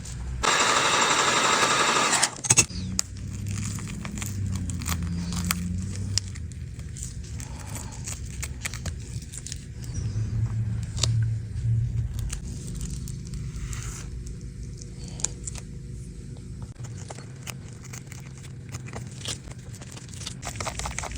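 Small clicks, crackles and tearing of cracked iPad screen glass and its adhesive as the glass is pried away from the frame with small tools, over a low steady hum. A loud hiss lasting about two seconds comes about half a second in.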